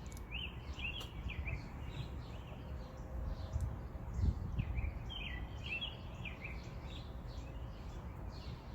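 A songbird singing a short phrase of quick chirps twice, a few seconds apart, over a low rumble of wind on the microphone.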